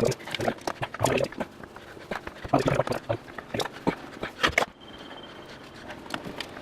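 A screw being turned by hand into a drilled hole in a tiled floor with a screwdriver: irregular creaks, squeaks and clicks. They stop about two-thirds of the way through.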